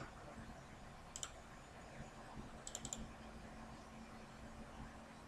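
Faint clicks of a computer mouse: a single click about a second in and a quick run of clicks near three seconds, over a low steady hum.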